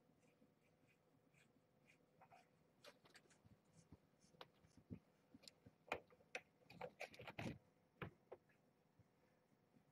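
Near silence: room tone with faint scattered rustles and light clicks, most of them bunched about six to seven and a half seconds in.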